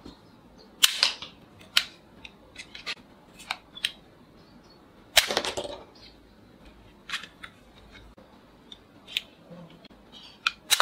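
Plastic toy revolver being loaded, cocked and fired: a string of sharp plastic clicks, with louder snaps about a second in and about five seconds in, the second as the gun shoots a soft-tipped bullet out of the barrel.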